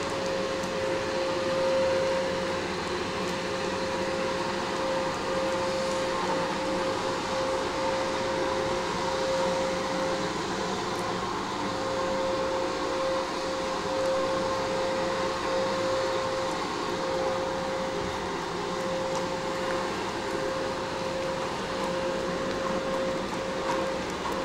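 A small machine running steadily: a constant hum with one steady whine over it and no change in pitch.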